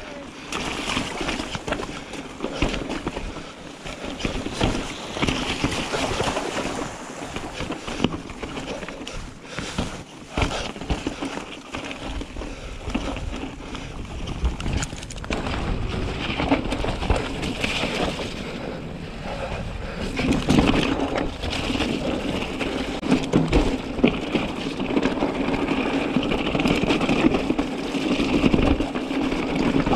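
Mountain bike riding down a rocky, grassy trail: tyres rolling over stones with frequent knocks and rattles from the bike, and wind noise on the microphone.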